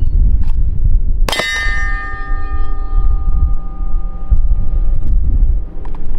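A single 9mm Glock 19 pistol shot and the clang of an AR500 steel target being hit, the steel ringing with clear metallic tones that fade over about four seconds. Steady wind rumble on the microphone underneath.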